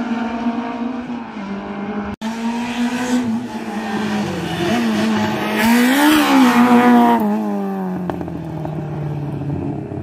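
Slalom race car's engine held at high revs, its pitch rising and falling with the throttle between gates. It is loudest about six seconds in as the car passes close, then fades. The sound cuts out for an instant about two seconds in.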